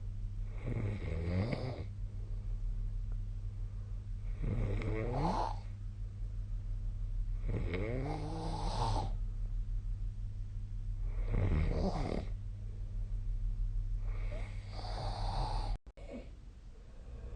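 A person snoring in their sleep: five snores about three and a half seconds apart, each a pitched rasp that rises and then falls, over a steady low hum. The sound cuts out for a moment near the end.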